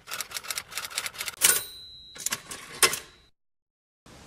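Typewriter keys clacking in a quick, uneven run, with a bell ring about a second and a half in that hangs on for a moment, and a last heavy strike near three seconds before the typing cuts off.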